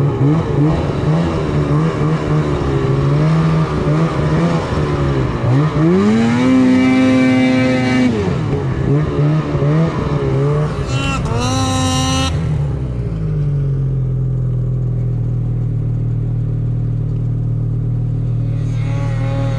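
Two-stroke snowmobile engine under way, its pitch rising and falling with the throttle: two high revs held for a second or two around the middle, then settling into a steady lower drone.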